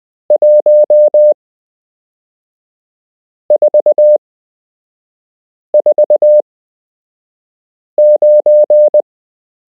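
Morse code sent as a pure practice tone, four short groups of dots and dashes about two seconds apart. Each group looks like five elements, the length of a Morse numeral.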